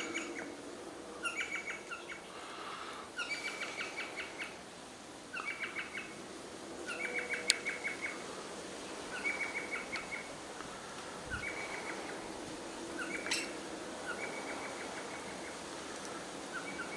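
A small bird calling in short rapid chattering trills, repeated about nine times a second or two apart.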